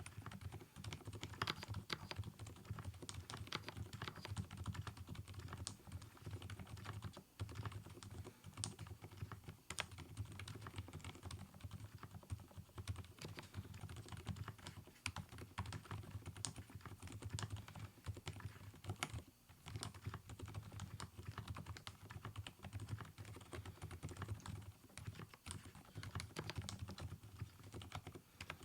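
Typing test on an mStone Groove T tenkeyless keyboard fitted with factory-lubed silent Milky switches, which are damped by the stem's slider design instead of silicone dampers: a dense, continuous stream of keystrokes that is close to noiseless.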